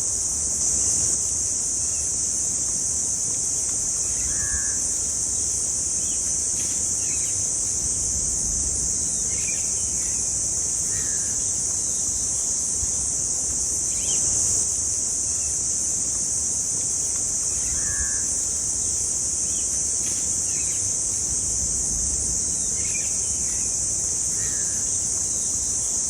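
A steady, loud, high-pitched insect chorus, with short bird calls scattered every few seconds.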